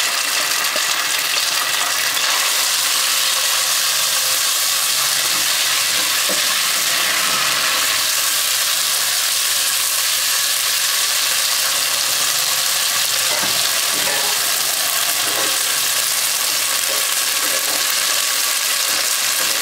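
Boiled vermicelli sizzling steadily in ghee in a non-stick wok over medium heat as it is stirred with a silicone spatula.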